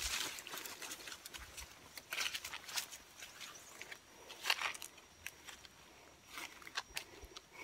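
Footsteps and the rustle of leaves and undergrowth as a person walks through brush, in uneven crackling bursts, the loudest about four and a half seconds in.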